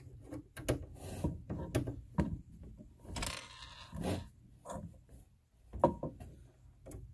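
Screwdriver loosening small Phillips screws in a 3D printer's plastic carriage bracket: irregular small clicks and knocks of the tool and the bracket being handled, with a short rustle about three seconds in.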